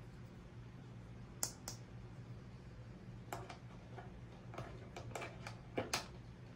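Small plastic toy pieces clicking and tapping as they are handled, about a dozen short sharp clicks that come more often in the second half, the loudest two near the end, over a faint steady low hum.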